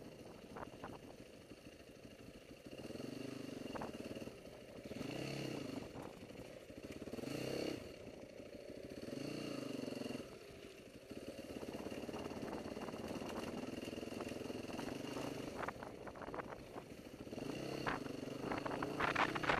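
Dirt bike's single-cylinder four-stroke engine, a Yamaha WR450F, running along a trail, its note rising and falling several times as the throttle is opened and closed. A burst of clattering comes near the end.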